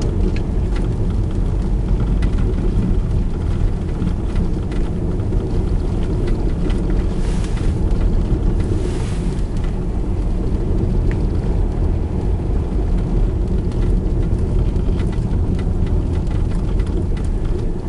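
Inside a car creeping through deep snow on an unplowed road: a steady low rumble of engine, tyres and wind, with a brief louder hiss about halfway through.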